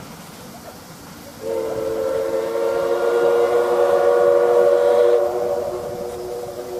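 Steam whistle of the D51 498 steam locomotive blowing one long blast that starts about a second and a half in, with several tones sounding together. It is loudest for about four seconds, then weakens and is still sounding at the end.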